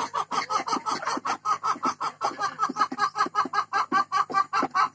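Hybrid laying hen clucking rapidly and steadily, about six short clucks a second: the restless pre-laying call of a hen about to lay an egg.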